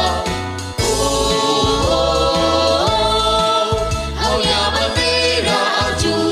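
Political party anthem: a choir singing a held, gliding melody over a band with a steady pulsing bass.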